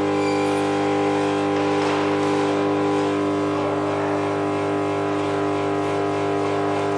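Induction heater running while it heats an aluminium electric motor housing: a steady hum made of several fixed tones over a hiss, unchanging throughout.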